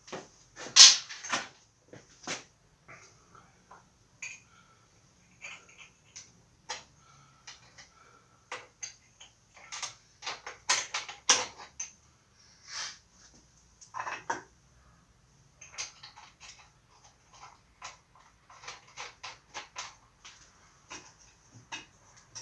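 Irregular metallic clinks, taps and clicks of hand tools and small steel parts as a homemade rear brake rod is fitted to the brake linkage. The clinks come at an uneven pace, a few louder than the rest.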